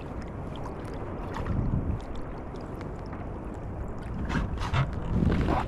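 Kayak paddle strokes splashing through choppy lake water, with a steady low wind rumble on the microphone. The splashes come in surges about one and a half seconds in, twice around four and a half seconds, and loudest near the end.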